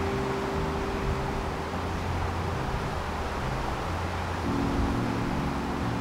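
Soft background music of held chords that change once, about four and a half seconds in, over a steady hiss and low rumble.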